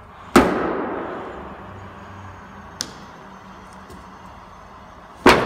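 Two sharp pops about five seconds apart as a suction-cup dent puller is pulled against a vehicle's dented steel roof panel, the panel ringing for about a second after each. A faint click comes between them.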